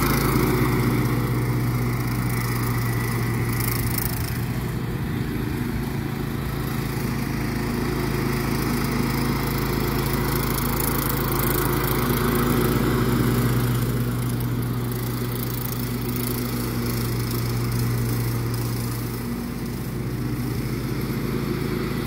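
Howard Price Turfblazer 48-inch walk-behind mower's engine running steadily under load while mowing grass. The engine note dips briefly near the end.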